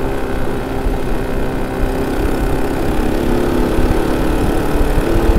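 ATV quad bike engine running steadily as the bike rides along the sand. Its pitch shifts slightly about halfway through, over a rough low rumble.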